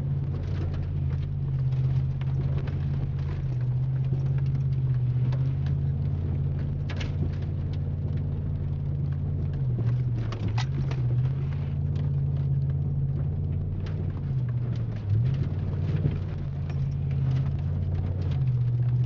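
Chevy Silverado pickup's engine and exhaust droning steadily, heard from inside the cab, its pitch dipping and rising again about ten and fifteen seconds in as the throttle changes. Mud and water spatter against the truck with scattered sharp clicks.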